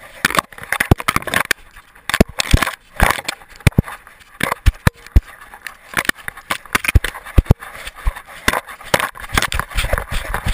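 Camera strapped to a moving dog knocking and rattling in its mount. Irregular clicks and thumps come with the crunch of paws on snow and dry leaves.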